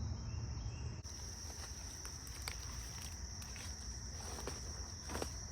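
Steady high-pitched trilling of crickets, with scattered crackling footsteps through woodland undergrowth starting about a second in.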